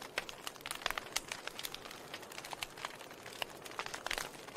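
Wood fire in a fireplace crackling: irregular sharp pops and snaps over a soft hiss, with a denser run of snaps about four seconds in.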